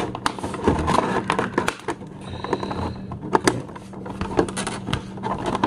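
Irregular clicks, snips and crackles of scissors and a clear plastic packaging tray being handled as a toy figure is cut free and pulled out.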